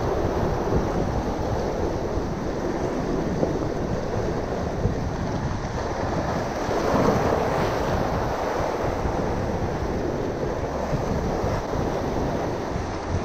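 Steady rush of wind buffeting the microphone over waves and surf, swelling a little about seven seconds in.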